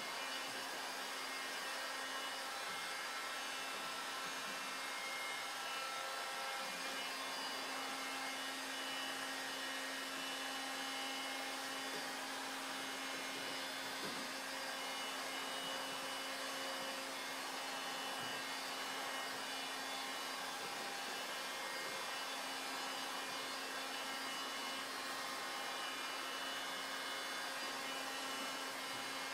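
Electric heat gun running steadily, its fan blowing with a constant hum, as it heats window tint film on a car's side window.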